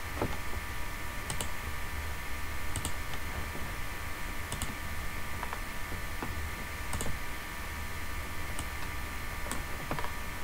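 Computer mouse clicking, single clicks about every one to two seconds, over a steady electrical hum.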